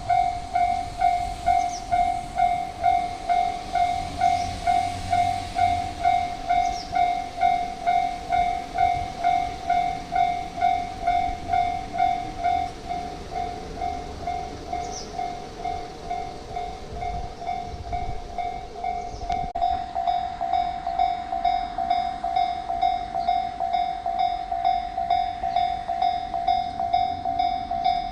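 Japanese railway level-crossing warning alarm ringing its repeated "koten, koten" tone, about two strikes a second, with the low rumble of a passing train underneath.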